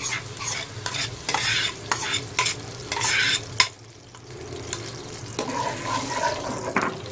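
A metal spoon scraping and tapping mashed chana dal out of a steel bowl into a pot of hot vanaspati ghee, a quick run of sharp scrapes for the first few seconds, then stirring in the pot with the ghee sizzling under the dal.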